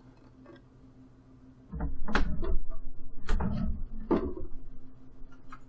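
Handling noise on a desk: a few sharp clicks and knocks with low thuds under them, three standing out, starting about a second and a half in.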